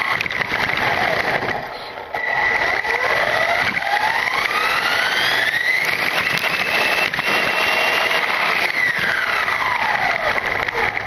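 Onboard sound of an LRP S10 Blast brushless electric RC touring car running on rough asphalt: the motor and drivetrain whine rises in pitch as it accelerates, holds, then falls as it slows near the end, over steady tyre noise. It briefly eases off about two seconds in.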